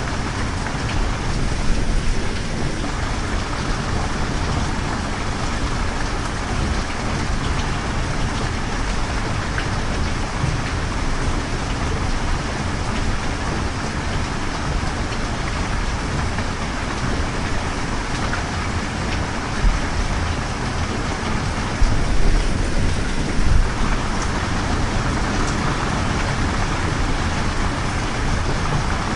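Steady heavy rain falling, an even hiss of drops, with a few brief low rumbles about two-thirds of the way through.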